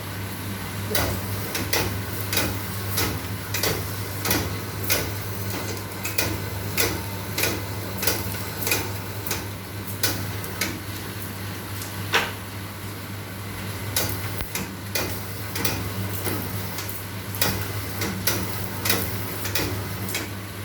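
Satay-skewer machine for thinning and rounding bamboo sticks running: a steady electric-motor hum under irregular sharp clicks and clacks, roughly two a second, with a louder knock about twelve seconds in.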